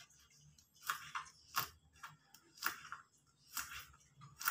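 Kitchen knife slicing green beans and tapping down on a plastic cutting board: five separate cuts, about one a second.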